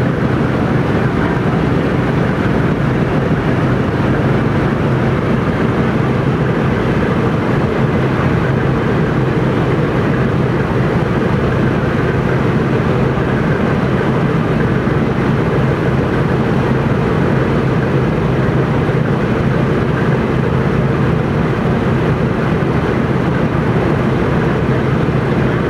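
Boeing B-17 Flying Fortress's radial engines running steadily on the ground, a loud, even, deep drone with no change in pitch.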